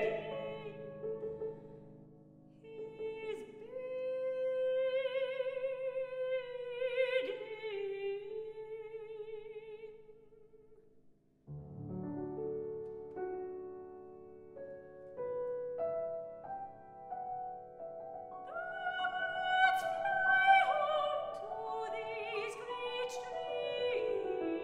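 Soprano singing an opera aria with piano accompaniment, her notes carrying a wide vibrato. About halfway through the music breaks off into a brief near silence, then the piano comes back in and the music grows louder.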